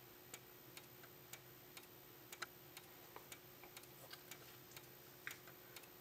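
Faint ticking of two System Sensor SPSR speaker strobes flashing out of step with each other, about two ticks a second in all, over a faint steady hum.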